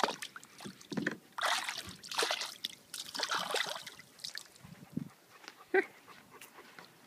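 A dog scraping and nosing loose sand to bury a chew toy: irregular bursts of gritty scraping and rustling. Near the end comes one short, high vocal sound.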